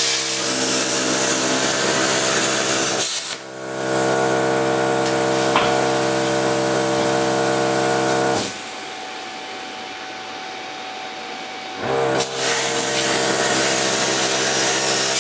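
Plasma cutter with an onboard air compressor cutting steel: a steady hiss over a humming compressor. It breaks off briefly about three seconds in, drops to a quieter run for a few seconds past the middle, then cuts again.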